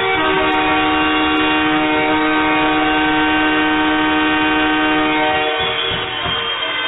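Arena goal horn blowing one long steady blast that stops after about five and a half seconds, signalling a goal.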